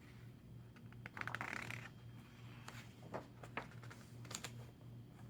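Faint light clicks and a brief rustle: a rustle about a second in, then a few scattered clicks, over a steady low hum.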